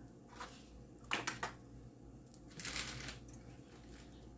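Eggshells being cracked and broken apart by hand: a few short, crisp cracks and crackles, with a longer crunchy crackle past the middle.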